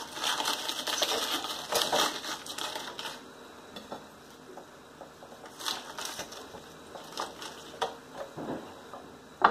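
Crunching, squishing and rustling of hands working a cabbage stuffing into a raw turkey's cavity for about three seconds. Then it goes quieter, with a few scattered light clicks and knocks, and a sharper knock at the end.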